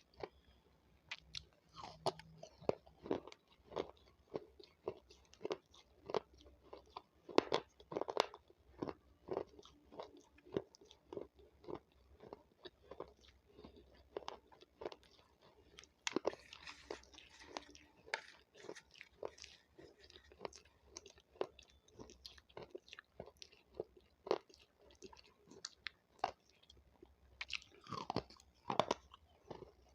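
Capsicum (bell pepper) being bitten and chewed: a steady run of crisp crunches, a few a second, with a couple of longer wetter crunches partway through and near the end.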